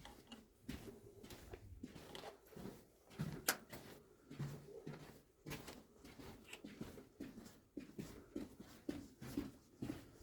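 Irregular footsteps and scuffs in an enclosed sandstone tunnel, several a second, with one sharp click about three and a half seconds in.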